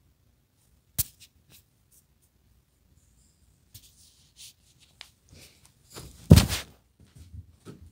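Handling noise of a handheld camera: a sharp click about a second in, scattered rustles and small knocks, and a loud thump with a heavy low end a little past six seconds as fabric brushes the microphone.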